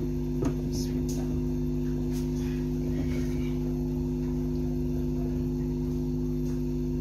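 Steady electrical mains hum, with a few light clicks in the first second or so as a glass pan lid and chicken pieces in a karahi are handled.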